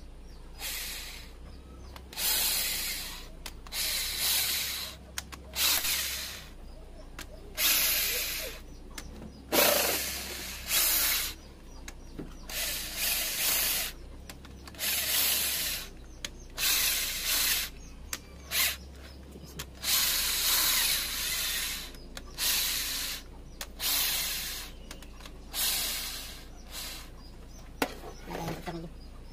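Power drill driving a socket on a long extension, run in about twenty short bursts of under a second each, backing bolts out of an Isuzu 4BC2 diesel's cylinder head.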